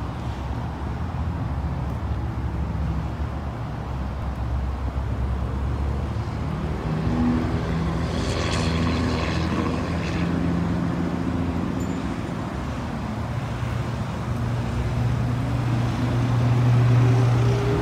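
Motor vehicle engines and traffic: a steady low engine hum, with a higher engine note rising in pitch near the end.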